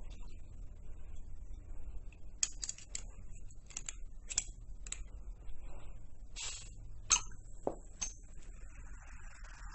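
A series of about a dozen sharp, irregularly spaced clicks and taps, starting about two seconds in and stopping about eight seconds in, over a low steady hum.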